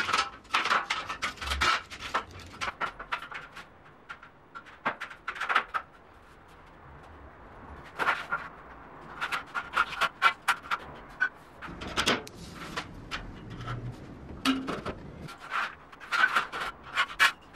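Tin snips cutting a steel drywall framing profile: short runs of sharp metallic crunching clicks, one per bite of the blades, with a lull about a third of the way through.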